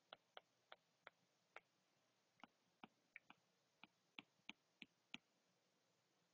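Near silence broken by faint, irregularly spaced clicks, about fourteen in six seconds: a stylus tapping the tablet screen while words are handwritten.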